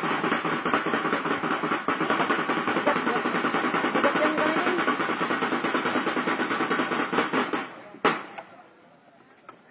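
Rapid drumming in a continuous snare-drum roll that stops about three-quarters of the way through, followed by one sharp accent hit.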